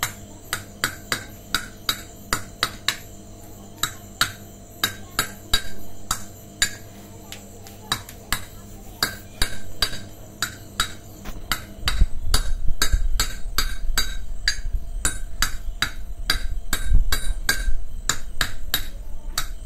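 A hammer strikes anchor bolts set through a steel plate, driving them into a masonry wall: a quick series of ringing metal blows, about three a second, with short pauses. A low rumble joins in about twelve seconds in.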